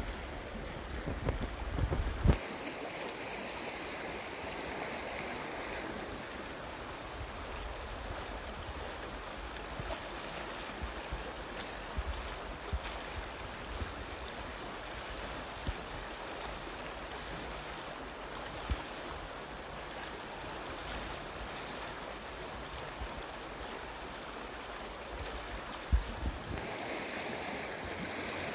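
Shallow river running over a stony bed: a steady, even rush of flowing water. A few low thumps hit the microphone, about two seconds in and again near the end.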